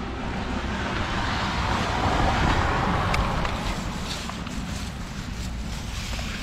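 A vehicle passing by: a rushing noise that swells to a peak two to three seconds in and then fades, over a steady low rumble, with a few light clicks near the end.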